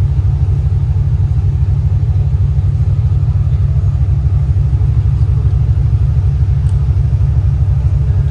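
Diesel engines of the 47 m Heesen superyacht Sirocco running at low revs while she is held off the quay for mooring, a loud steady low rumble with a fast even pulse.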